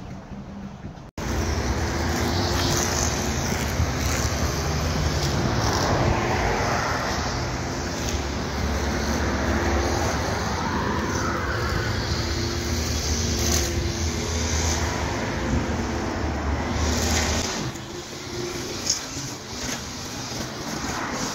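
Road traffic: cars running and passing on a city street, a steady low rumble with the rising and falling sweep of passing vehicles, easing off near the end.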